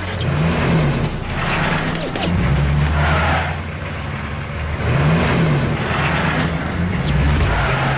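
Car engine running, revving up and dropping back twice.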